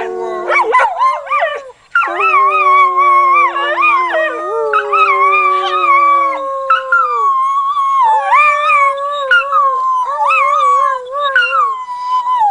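A dog howling in long, wavering calls that slide up and down in pitch, with a brief break about two seconds in: the dog 'talking' to its people.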